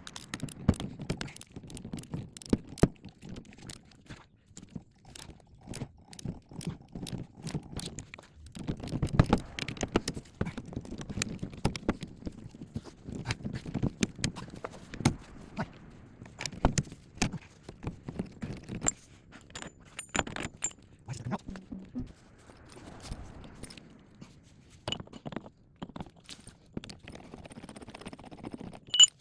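Irregular metallic clanks, taps and scrapes of hand tools on steel suspension parts, from work to separate a seized lower ball joint.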